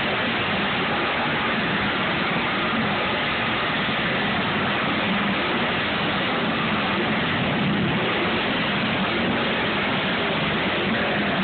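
Pickup truck engines idling, a low steady hum under an even rushing hiss.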